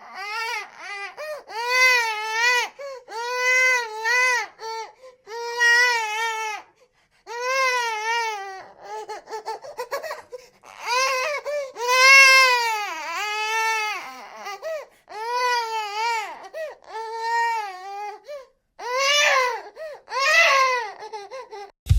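Newborn baby crying in a run of repeated wails, each rising and falling in pitch with short breaks for breath between them.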